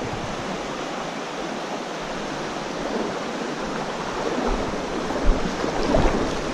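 River water rushing, a steady noise, with two brief low bumps near the end.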